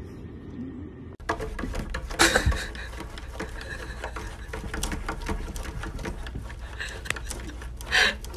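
A cat's paws tapping and scraping against a window pane, with two louder knocks on the glass about two seconds in and near the end.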